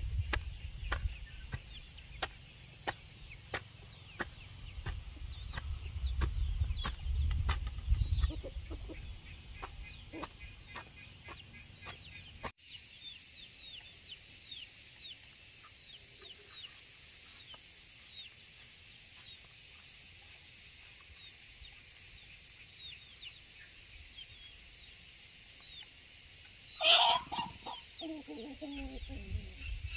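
Chickens: small high chirps throughout and a loud squawk near the end, followed by a few falling clucks. In the first half there is also a regular tapping about twice a second over a low rumble, which stops abruptly about halfway.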